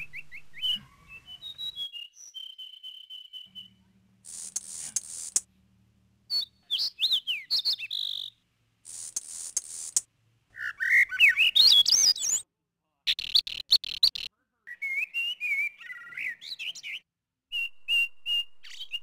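High whistling and chirping calls in short bursts, some gliding up and down in pitch, broken up by abrupt cuts and brief silences.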